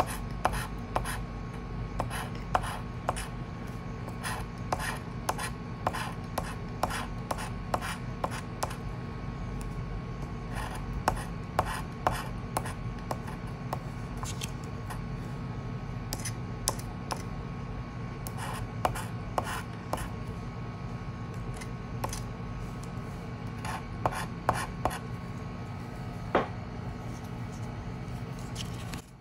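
Scratch-off lottery ticket being scratched with a small metal tool: short, sharp rasping scrapes, irregular at two or three a second, as the latex coating is scraped off the card. The strokes thin out near the end. A steady low hum runs underneath.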